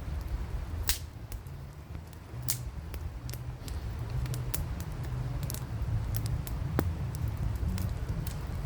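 Campfire crackling: sharp, irregular pops and snaps over a low steady rumble.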